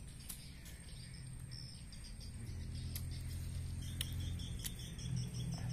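A small animal chirping in a rapid repeated series of short, high notes, over a low steady hum.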